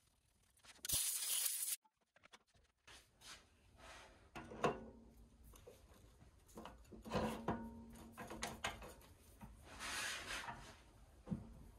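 Workshop handling sounds: a short hiss about a second in, then scattered knocks, clicks and rubbing as tools and parts are handled.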